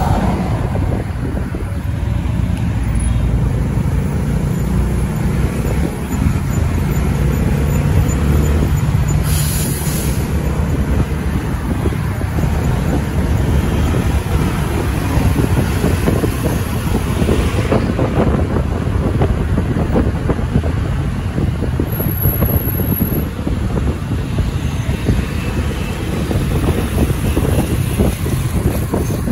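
Motorcycle riding in city traffic: the bike's engine running under a steady rush of road noise, with cars and trucks around it.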